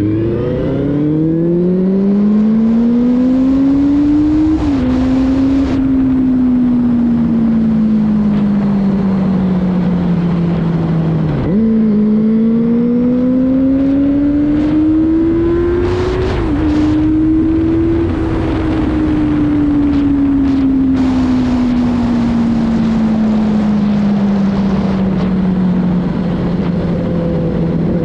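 Benelli 600i inline-four engine pulling hard through the gears. The revs climb, drop sharply at an upshift about four seconds in, then sag. A downshift near twelve seconds brings a quick jump in revs. The engine pulls again to another upshift around sixteen seconds, the revs fall slowly, and it picks up again near the end. Wind rushes over the microphone throughout.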